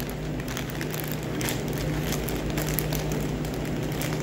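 Clear plastic bag crinkling and rustling in gloved hands as a bacon-wrapped pork tenderloin is slid into it, with many small irregular crackles. A steady low machine hum runs underneath.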